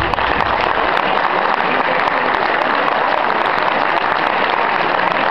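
Audience applauding steadily while background music fades out in the first second.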